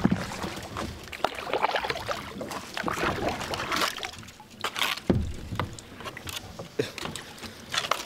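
Kayak paddling: the paddle swishing and splashing through the water, with repeated sharp knocks and clicks throughout.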